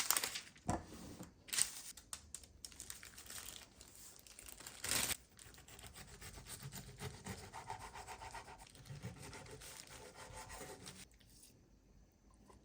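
Kitchen food-prep handling sounds: irregular rubbing and rustling with a few sharp clicks and one louder noisy burst about five seconds in, stopping about eleven seconds in.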